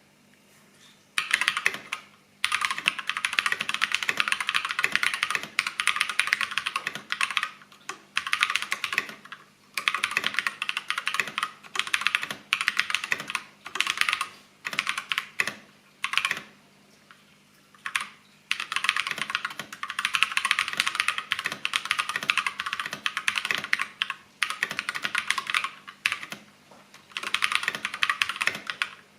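Fast typing on a custom Glorious GMMK TKL mechanical keyboard with Holy Panda tactile switches and PBT keycaps: dense runs of key clacks starting about a second in, broken every few seconds by short pauses.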